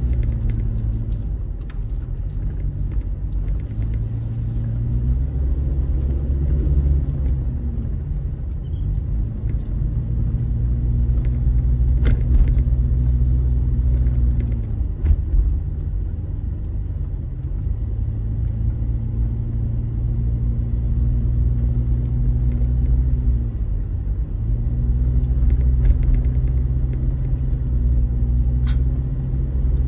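Car engine and road noise heard from inside the moving car's cabin, a steady low hum. The engine note falls and climbs back up a few times.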